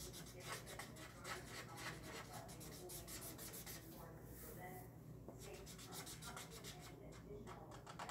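Faint scratching of a green Expo dry-erase marker on paper: quick back-and-forth strokes colouring in an area, with a short pause about halfway through.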